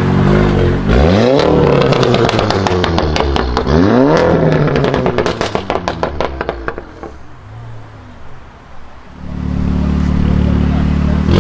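Volkswagen Golf 7 R's turbocharged four-cylinder engine through an iPE exhaust, blipped twice about three seconds apart with the pitch sweeping sharply up, followed by a rapid run of exhaust crackles and pops. After a lull the engine note returns steady near the end.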